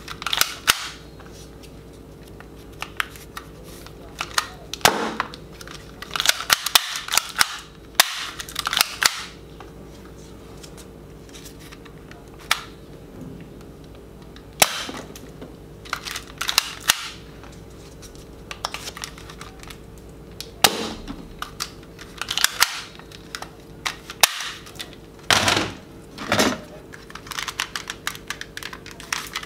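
Plastic toy guns being fired: irregular sharp gunshot-like bangs and clicks, some single and some in quick runs.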